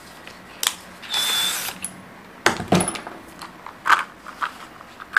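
Clicks and rattles of a plastic drill-bit case being picked up and handled, with several sharp clicks. About a second in there is a brief hissing whir with a thin high whine.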